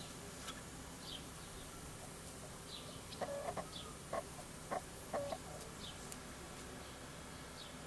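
A quick cluster of about five short animal calls, midway through, over faint high chirps that repeat about once a second.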